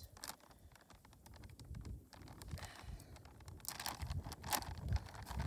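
A bag of worm castings being torn open and handled: a run of small crackles and rustles, busier in the second half, over a low rumble.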